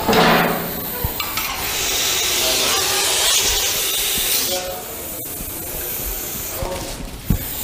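Russell's viper hissing: a short hiss right at the start, then one long, loud hiss of about three seconds. It is the defensive hiss of an agitated viper being handled.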